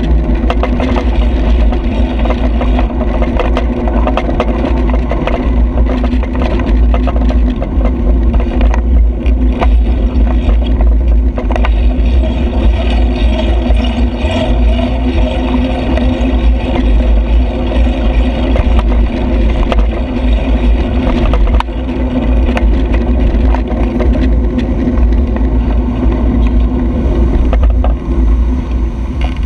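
Rumbling wind and road noise on a handlebar-mounted camera's microphone as a bicycle rides along a cycle lane, with small knocks and rattles from the bike over the road surface and motor traffic running alongside. The noise drops near the end as the bike slows for a traffic light.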